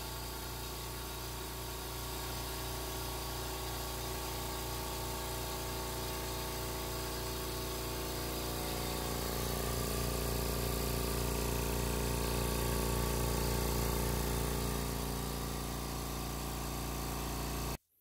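UDT 2 hp low-noise air compressor running with its twin-head pump filling the tank: a steady, even hum, quiet enough to talk over. It cuts off suddenly near the end.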